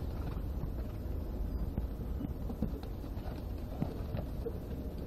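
Racehorses cantering past on a soft sand track, their hoofbeats dull scattered thuds, over a steady low rumble of wind on the microphone.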